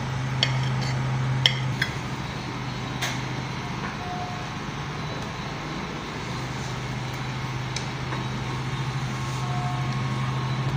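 Perforated steel skimmer spoon clinking and scraping against a ceramic plate as fried rice is spooned out, with several sharp clinks in the first three seconds and a few more later. A steady low hum runs underneath, dropping out about two seconds in and coming back about six seconds in.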